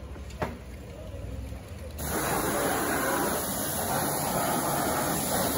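A quiet stretch with a single click about half a second in, then a cut to a steady, loud hiss of noise from about two seconds on.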